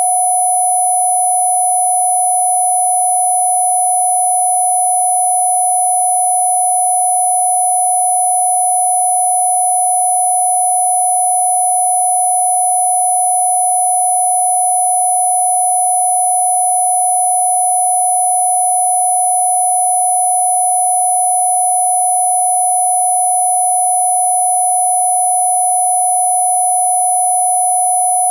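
Electronic sine tone of a Rife 'healing frequency' track, held perfectly steady at a single mid pitch, with a few faint higher tones above it.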